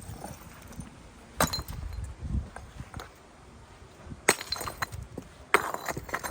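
Sharp clanking strikes with a brief high ring, three loud ones about a second and a half, four and a quarter, and five and a half seconds in, among lighter knocks.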